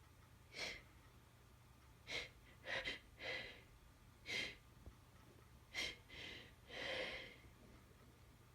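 Short, breathy gasps and sniffs from a person with a head cold, about nine in eight seconds, several coming in quick pairs and one longer breath near the end.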